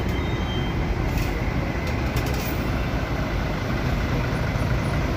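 Tour coach moving slowly past at close range, its diesel engine running with a steady low rumble.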